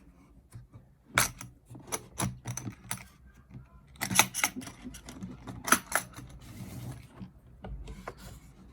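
Sharp plastic clicks and clatter as a hard plastic clamp-set case is unlatched and opened and the clamps inside are handled. The loudest knocks come about a second in and twice between four and six seconds.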